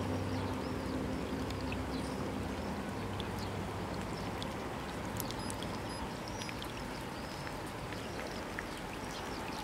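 Steady hiss of light rain starting to fall, with faint high chirps and a few small ticks over it.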